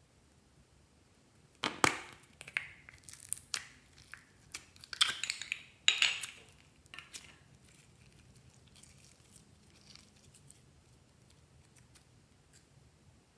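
A plastic toy capsule ball filled with slime being pried open and the slime squeezed out: a run of sharp plastic clicks and crackles starting about two seconds in and lasting about five seconds, then only faint handling.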